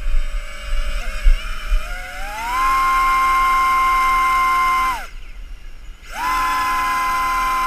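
SunnySky R2205 2300KV brushless motors with propellers, on a hand-held tricopter running on a 3-cell battery. They spin up from a low idle to full throttle with a steady high whine, held for about two and a half seconds, then cut off. About a second later they run up to full throttle again and hold.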